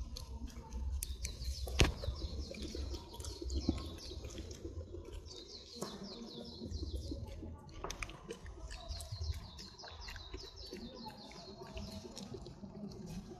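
Small birds chirping in runs of quick high trills, coming and going several times, over a low rumble. Two sharp clicks stand out, one about two seconds in and another near eight seconds.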